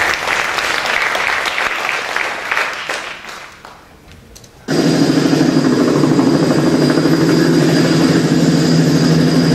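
Audience applause dying away over about four seconds. Then, about five seconds in, a loud, steady droning sound cuts in suddenly and holds.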